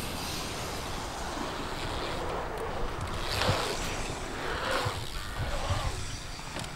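Wind rumbling on the microphone, with a bike rolling past on the pump track: a louder whoosh swells and fades about three and a half seconds in.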